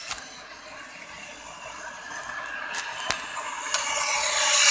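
Model locomotive running along its track on the floor, a hissing whir with a few sharp clicks that grows louder as it comes right up to the microphone near the end.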